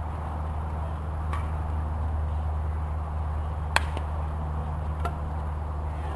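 Steady low rumble with one sharp crack of a softball impact a little under four seconds in, and fainter knocks about a second in and near five seconds.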